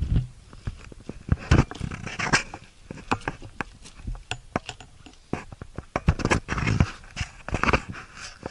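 Irregular crunching footsteps on loose volcanic rock and gravel, with short scrapes and knocks.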